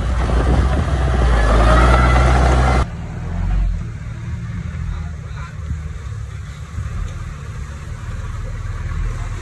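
Heavy machine engine noise: a crawler bulldozer working loudly, cut off abruptly about three seconds in, then the quieter, steady low engine sound of a loaded dump truck driving slowly.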